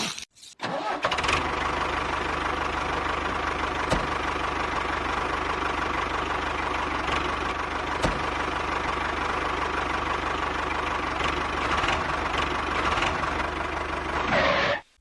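A small motor runs steadily with an engine-like drone, a whirring hum over a low throb. It starts about a second in and cuts off abruptly near the end.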